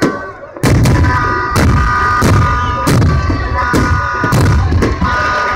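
Fireworks exploding: a quick run of loud bangs, roughly two a second, starting about half a second in after a brief lull.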